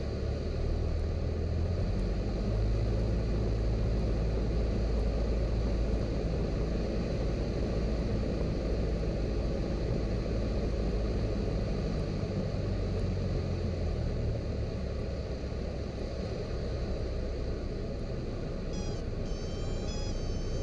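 Cessna 172's piston engine and propeller running with a steady low rumble, which gets louder about two seconds in and eases somewhat past the middle. Short music notes come in near the end.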